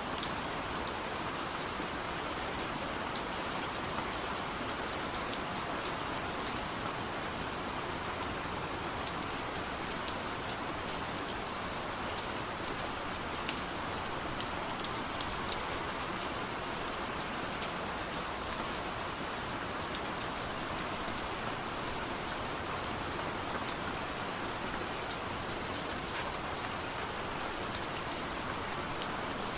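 Steady rain falling, an even hiss with scattered individual drop ticks and no thunder.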